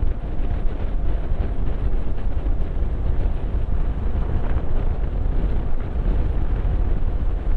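Wind buffeting the microphone of a motorcycle riding at highway speed, a steady low rumble mixed with the bike's running noise.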